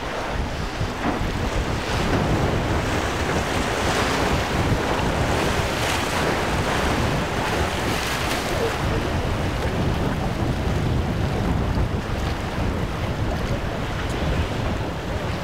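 Wind rushing on the microphone over breaking waves and wake wash, with the skiff's single Suzuki 115 hp outboard running underneath at a steady level.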